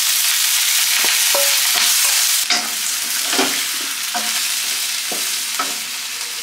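Beef slices sizzling in a hot wok as a wooden spatula stirs them, with scrapes and knocks of the spatula against the pan. The sizzle is strongest in the first couple of seconds after the beef goes in, then eases a little.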